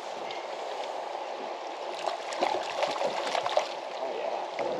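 River water gurgling and lapping against a drift boat, with a hooked cutthroat trout splashing at the surface close to the boat in the latter half.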